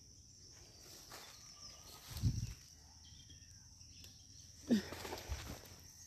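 Outdoor ambience of a steady high insect drone, with a few soft low thumps, the loudest about three-quarters of the way through.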